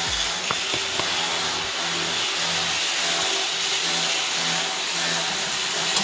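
Steady, even machine noise, with a couple of faint clicks in the first second.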